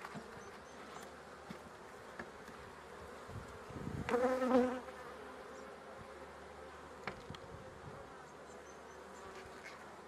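Honeybees humming steadily from an open hive, with one bee buzzing louder and close for under a second about four seconds in. A faint click near seven seconds.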